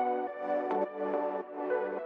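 Background music: soft electronic instrumental with sustained synthesizer chords and changing notes.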